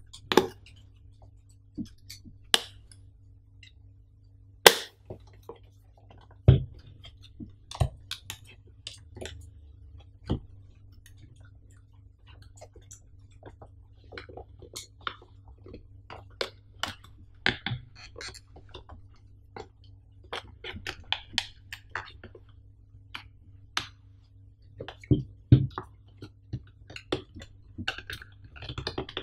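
Hands handling a cardboard product box and working its lid open: scattered sharp taps and knocks with soft scraping and rustling of cardboard between them. A faint steady low hum lies underneath.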